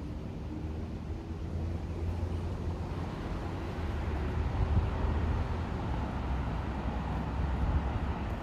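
Low, steady vehicle rumble that slowly grows louder, with some wind on the microphone.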